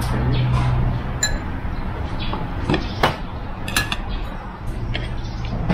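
Glasses and tableware clinking on a restaurant table: a handful of light clinks, two of them ringing briefly, over a steady low hum.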